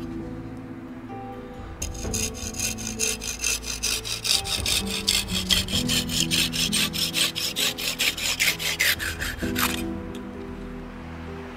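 Pruning saw cutting through the wood of an axe handle protruding from the axe head, trimming it flush, in quick even back-and-forth strokes. The sawing starts about two seconds in and stops about two seconds before the end, over soft background music.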